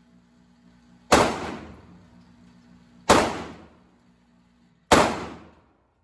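Three gunshots about two seconds apart, each a sharp crack followed by a ringing echo that dies away.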